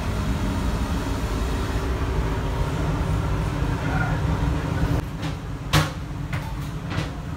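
Steady low rumble of a moving passenger train, heard from inside its toilet compartment. It eases about five seconds in, and a few sharp clicks or knocks follow near the end.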